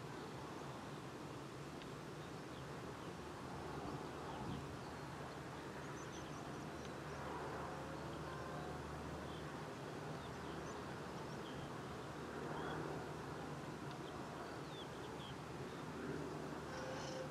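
Distant drone of a Maule M-5 light aircraft's piston engine and propeller on approach, faint and steady, swelling a little now and then.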